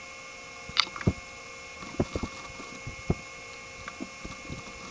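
Faint steady electrical hum with a scattering of short, soft clicks and taps.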